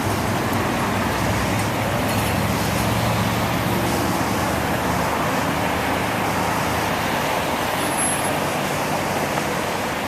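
Steady distant rumbling roar, like far-off road traffic, with a low drone that is strongest in the first half. The recordist hears it as a strange sound coming from the sky.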